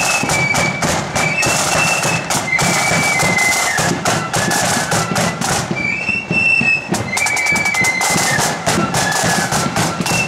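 Marching flute band playing a tune, the high flutes carrying the melody over snare drums and a bass drum. About six seconds in the drumming thins out briefly under a long held flute note, then picks up again with a quick run of snare strokes.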